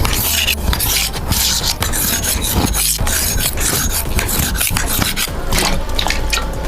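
Rough rubbing and rasping, a quick continuous run of scratchy strokes.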